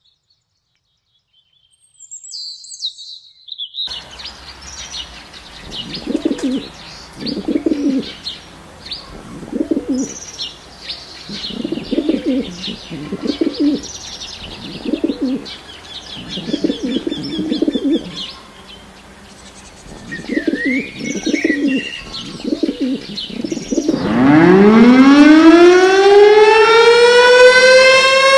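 Eurasian collared doves cooing in short repeated phrases, with high bird chirps above them. About 24 seconds in, a loud siren winds up, rising steeply in pitch, then holds a steady wail.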